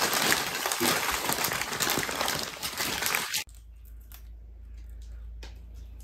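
Paper burger wrappers being unwrapped and crumpled: a dense crinkling crackle that cuts off abruptly about three and a half seconds in. After that there is a steady low hum with a few faint clicks.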